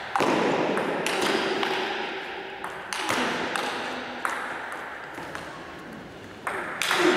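Table tennis ball struck by bats and bouncing on the table during a rally: sharp clicks about a second apart, each ringing out in a large, echoing hall.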